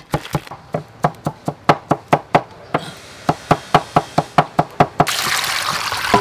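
Cleaver mincing garlic on a wooden chopping board: rapid, even knocks, about five a second. Near the end the knocks stop and water splashes as hands wash vegetables in a steel bowl.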